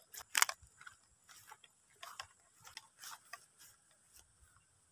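Footsteps on grass: soft, irregular scuffs and crunches about every half second that thin out and stop near the end.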